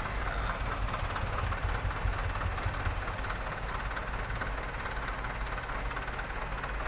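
A vehicle engine running steadily with a continuous low rumble.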